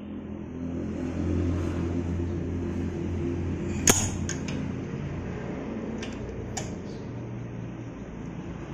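A metal hand tool clicking against a motorcycle's rear brake caliper bolt: one sharp click a little under four seconds in, then a few lighter ones. Under it runs a steady low hum that fades near the end.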